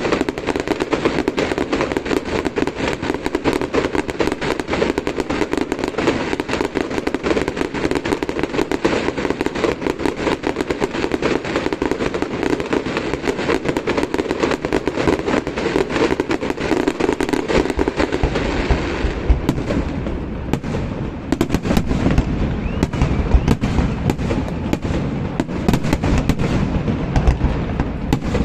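Fireworks display: a dense, continuous crackle of many small bursts. About two-thirds of the way through, the crackle thins and deeper booms take over.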